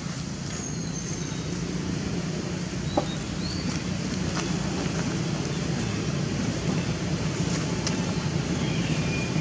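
Outdoor ambience: a steady low rumble with a few short, high chirps scattered through it, and a single sharp click about three seconds in.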